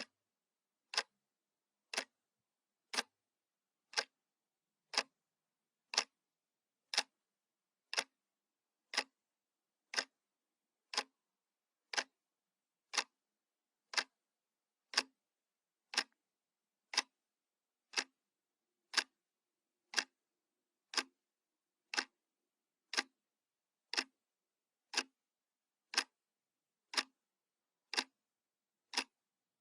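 Analog clock ticking, one sharp tick each second with silence between.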